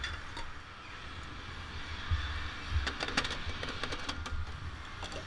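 Petrol pump nozzle being handled and hung back on the pump: a cluster of sharp clicks and knocks about three to four seconds in, over a steady hiss and low rumble.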